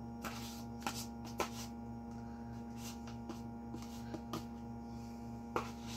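Steady low hum with a few faint, light clicks and taps scattered through it, from kitchen handling at the stove.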